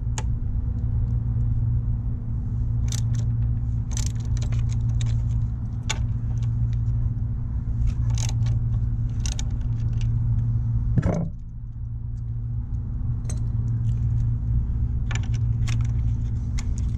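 Metal clinks and clicks of a 12 mm socket wrench and tools against the brake caliper while its mounting bolts are loosened, a dozen or so scattered strikes over a steady low hum.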